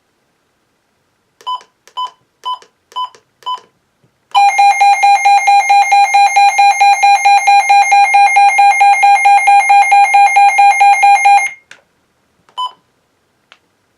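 A NOAA Weather Radio receiver going off on receiving the weekly test alert. It gives five short high beeps about half a second apart, then a loud pulsing alarm tone at about five pulses a second that lasts about seven seconds and cuts off, then one more short beep.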